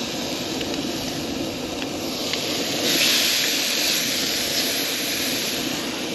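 Hot oil sizzling in a frying pan: a steady hiss that swells louder about three seconds in, with a few small pops.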